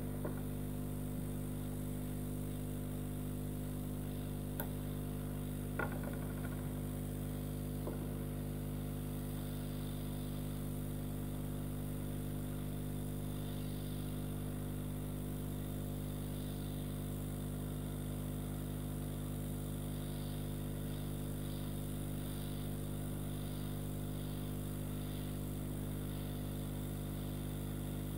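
Steady electrical mains hum with a few faint ticks about five, six and eight seconds in.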